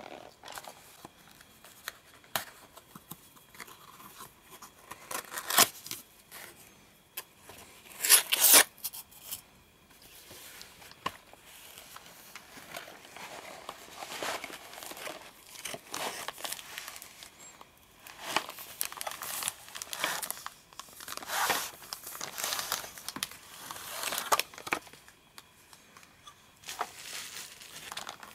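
Cardboard toy box being opened and handled by hand, with tearing and scraping of the card, then a plastic bag crinkling as the toy train in it is drawn out. Irregular rustles throughout, loudest about five and eight seconds in.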